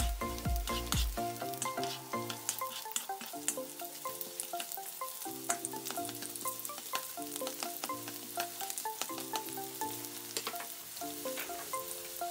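Sliced garlic sizzling and crackling in hot oil in a non-stick wok while a spatula stirs it, with soft background music underneath.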